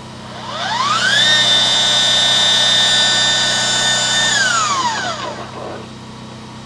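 Electric motor of a drain-cleaning cable machine spinning up with a rising whine, running at steady speed for about three seconds, then winding down, while clearing roots from a cast-iron drain line. A steady low hum runs underneath.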